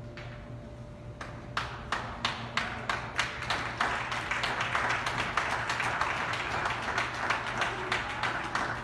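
Audience clapping: a few separate claps about three a second start about a second in, building into full applause that tapers near the end.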